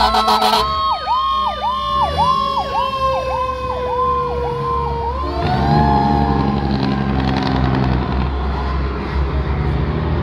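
Fire engine sirens: an electronic siren yelping rapidly, about two and a half sweeps a second, over a second siren tone that slowly falls in pitch and then winds back up about halfway through. The truck's engine runs underneath.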